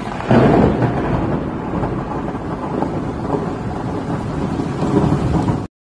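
Thunder sound effect for a logo intro: a loud crack about a third of a second in, then a steady rumbling hiss that cuts off suddenly just before the end.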